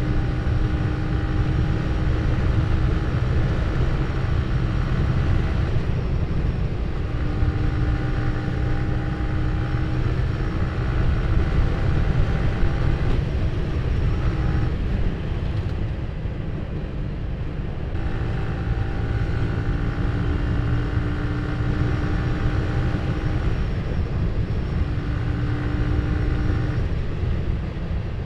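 Yamaha Vixion R's 155 cc single-cylinder engine running at steady cruising revs under a heavy rumble of riding wind on the microphone. The engine note fades out a few times, about six, thirteen and twenty-three seconds in.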